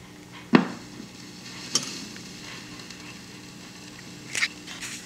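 Webcor portable record player playing through its speaker: a steady low hum, one sharp thump about half a second in, then a few lighter ticks and pops as the stylus runs in the record's lead-in groove.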